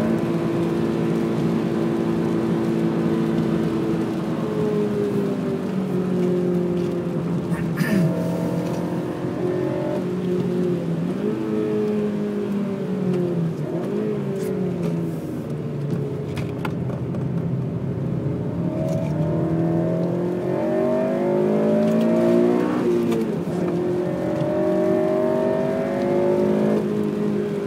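Honda Civic Type R FN2's four-cylinder VTEC engine under track driving, its pitch repeatedly falling on lift-off and downshifts and climbing again under acceleration through the gears.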